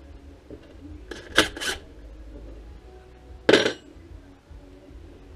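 Metal tools and small metal parts clinking and clanking while felling dogs are swapped on a chainsaw: two quick clinks about a second and a half in, then another clank about two seconds later.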